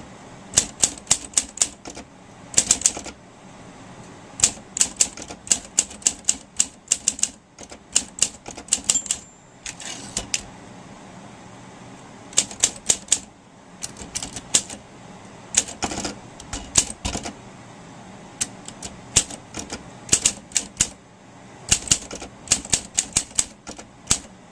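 Typewriter keys being struck slowly, in short runs of several sharp clacks with brief pauses between the runs.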